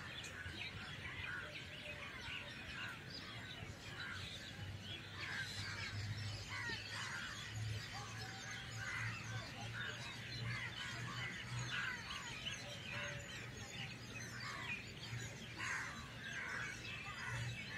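Many small birds chirping and calling at once, a busy stream of short high notes, over a faint steady low hum.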